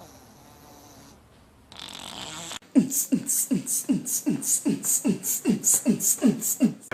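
Rhythmic beatboxing at about three beats a second: each beat is a kick-like thump that drops in pitch, topped by a hissing hi-hat sound. It starts nearly three seconds in, after a short hiss.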